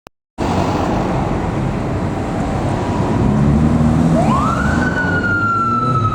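Police motorcycle siren switching on about four seconds in: one wail that rises quickly, then begins a slow fall. Underneath, loud engine and road noise cuts in abruptly just after the start.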